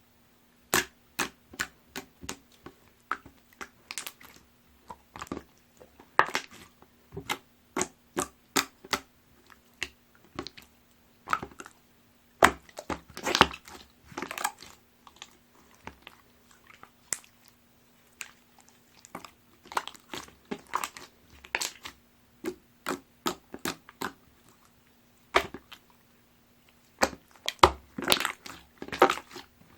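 Jiggly, watery slime being squeezed and pressed by hand, giving irregular wet clicks and pops, sometimes in quick clusters.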